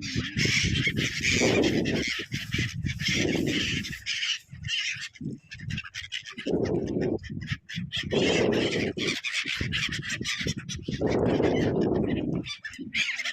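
Birds calling, many at once, with repeated louder calls coming and going.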